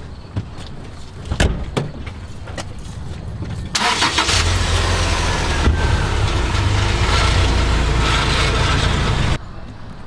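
A motor vehicle engine starts just under four seconds in and runs steadily with a low rumble, then cuts off abruptly near the end. A few sharp knocks or footsteps come before it.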